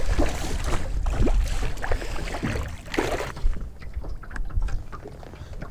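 Hooked blue catfish splashing at the surface beside the boat, several splashes over the first three seconds or so, then quieter. Wind rumbles on the microphone throughout.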